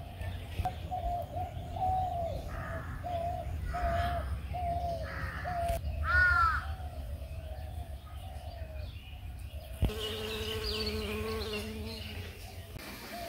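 Outdoor rural bird and insect sounds. A bird repeats a short call about once a second, and a crow caws once, loudly, about six seconds in. From about ten seconds in an insect buzzes steadily near the microphone for a few seconds, over a low wind rumble.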